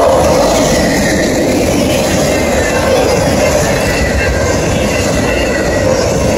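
Freight train of autorack cars rolling past close by: steady noise of steel wheels running on the rails.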